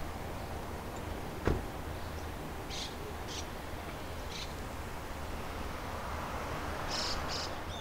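Outdoor ambience with a steady low hum, and birds giving short high chirps several times. There is a single sharp click about a second and a half in, and a broad swell of noise near the end, like a car passing slowly.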